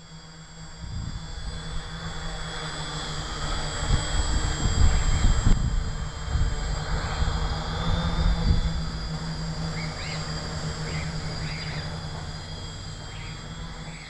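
Electric tricopter's motors and propellers running with a steady whine while in flight, with gusty wind rumbling on the microphone.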